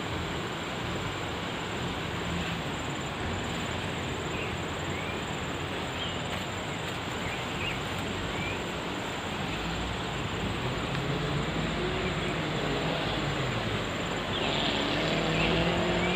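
Off-road jeep engine running under load amid a steady rushing noise, with the engine pitch rising in the last few seconds.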